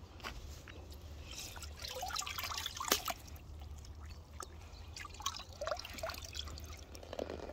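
Water dripping, trickling and splashing as a sturgeon moves in a landing net in a tub of water. The splashing is busiest and loudest around two to three seconds in.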